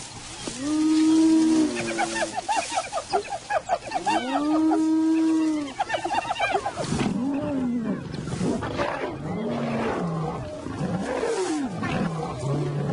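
Lions and hyenas fighting. There are loud, drawn-out calls that rise and fall in pitch, and a rapid run of short calls about two seconds in. In the second half, rougher snarls and growls take over.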